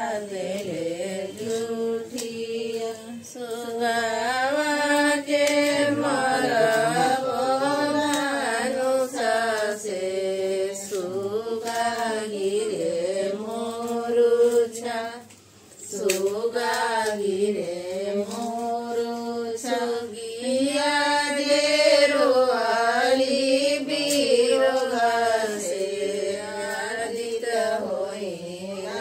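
A devotional song: a single voice singing a slow, gliding melody, breaking off briefly about halfway through.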